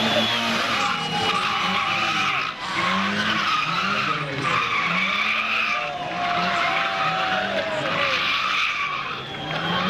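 Competition car's engine revving hard, its pitch climbing and dropping again and again as it runs up through the revs and shifts, with tyre skidding noise over it.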